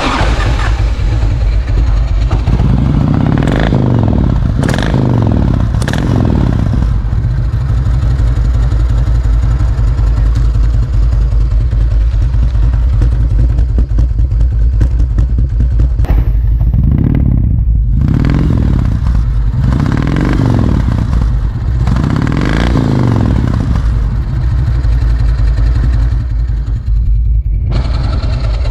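Harley-Davidson Softail Heritage's carbureted Evolution V-twin running through long straight-through custom exhaust pipes, idling and blipped on the throttle about five times: twice in the first few seconds and three times past the middle.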